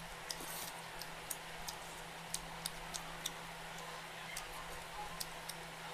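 Close-up eating sounds: about a dozen irregular sharp wet clicks from chewing and from fingers working rice and meat on a steel plate, over a steady low hum.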